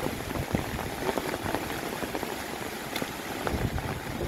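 Heavy rain falling steadily: a dense hiss with many close drops ticking irregularly.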